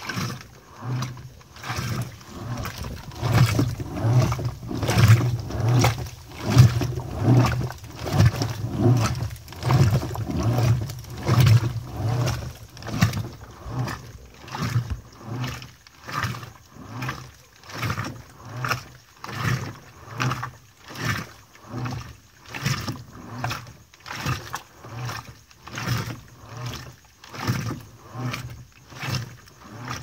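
Electrolux LDD16 16 kg top-load washing machine agitating on the extra-low water level. The agitator reverses about once a second, each stroke a motor hum with a swish of soapy water and clothes. Strokes are louder in the first half, then settle into an even rhythm.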